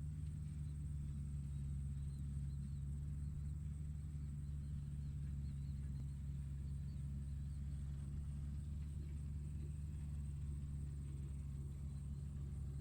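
Tractor engine running at a steady speed, a low, even drone that does not change. Faint short high chirps sound over it through much of the stretch.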